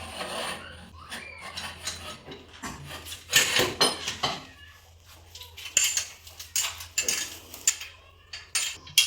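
Irregular metallic clinks and scraping strokes, as of metal tools and pipe being handled during manual well-drilling work.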